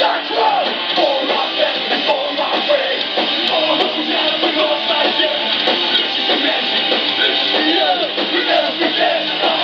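Hardcore punk band playing live, loud electric guitars filling the sound, heard from within the club crowd with little bass.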